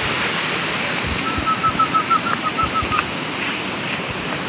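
Steady rushing of river water, with a run of about ten quick, evenly spaced high chirps between about one and three seconds in.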